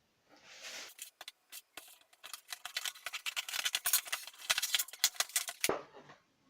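A microphone's retail box being opened by hand: a rapid, dense run of crackling and rustling packaging that stops abruptly near the end.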